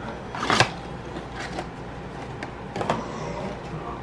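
Nespresso Vertuo coffee machine brewing a capsule: a steady motor and pump hum, with two short sharp sputters, the louder about half a second in and another near three seconds.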